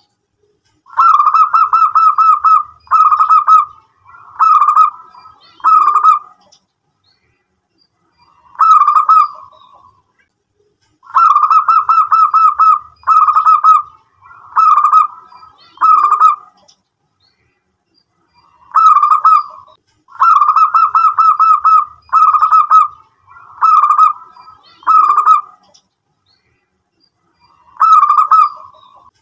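Zebra dove cooing: phrases of rapid staccato notes, each lasting a second or two, repeated about fifteen times with short pauses between them.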